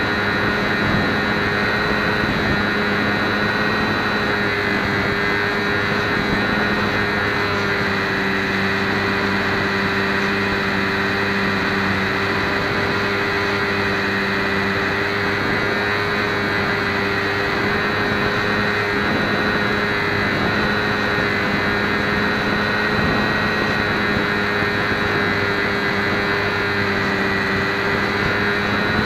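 HobbyZone Champ RC plane's small electric motor and propeller whining steadily at a held pitch, heard close from a camera on the airframe, with rushing wind noise over the microphone.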